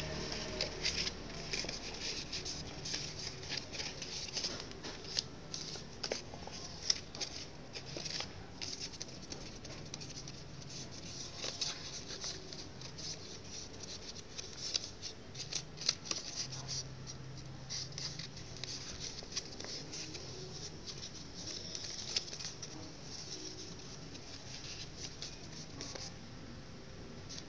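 Sheet of paper being folded and creased by hand: irregular rustling with many sharp crackles and crinkles.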